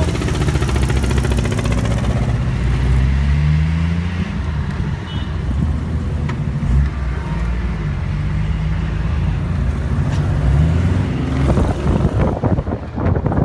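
An old Jeep CJ engine pulling away and accelerating, its low note rising and then dropping again a few times as it shifts up through the gears. Wind buffets the microphone in gusts near the end.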